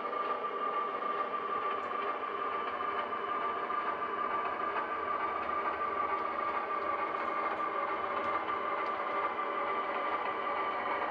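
HO scale model locomotive running slowly along the yard track, giving a steady hum with one clear mid-pitched tone above it.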